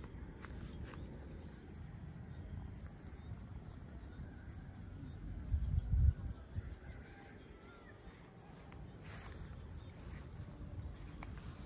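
An insect chirping in a rapid, even string of high pulses, over a low rumbling noise that surges briefly about six seconds in.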